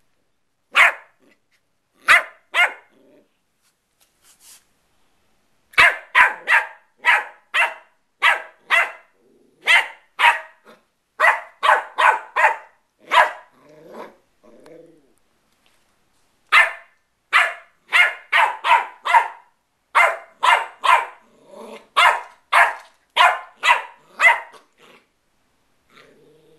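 West Highland White Terrier puppy play-barking in high, sharp yaps. A few single yaps come first, then two long runs of quick yaps at about three a second, with a short pause between them.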